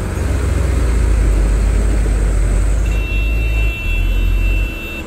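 Heavy diesel engine running hard and loud, dipping briefly twice in the second half. A thin, high whine joins about three seconds in.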